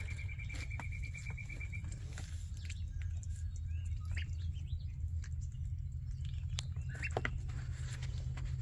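Week-old ducklings and goslings peeping: a quick run of even, same-pitched peeps in the first two seconds, then scattered single chirps, over light pattering and small clicks.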